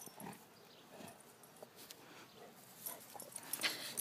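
A golden retriever–basset hound mix sniffing and snuffling at the grass, a string of short, irregular nose sounds with the loudest near the end.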